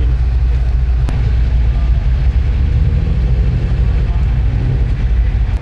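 A car engine running close by, a steady, loud, low rumble.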